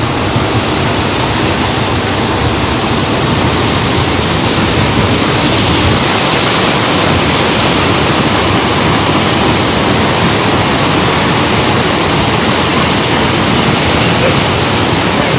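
Loud, steady rushing noise of wind and four turboprop engines inside a C-130 Hercules cabin during a paratroop drop, with a brief surge of hiss about five seconds in.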